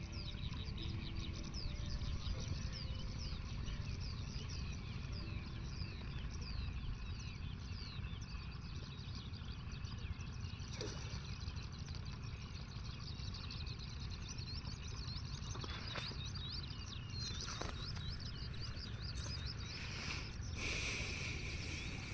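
Outdoor ambience: many small birds chirping with quick repeated calls over a steady low rumble, with a few sharp clicks around the middle and a short hiss near the end.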